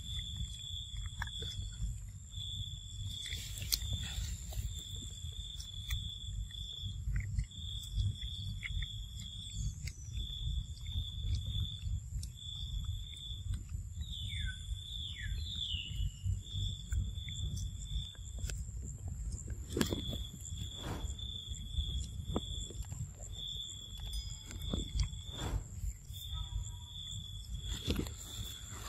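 Outdoor ambience: an insect drones in repeated pulses of one high, steady note over a constant low rumble on the microphone. Scattered soft clicks come from a macaque eating a dragon fruit, and two short falling squeaks sound around the middle.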